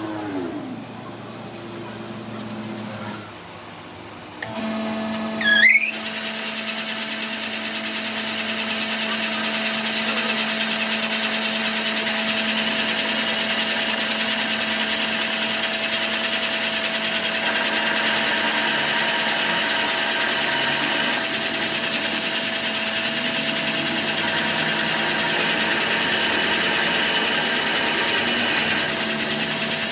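A workshop power tool winds down at the start. Another starts about four and a half seconds in, spins up, and then runs steadily with a constant hum and working noise.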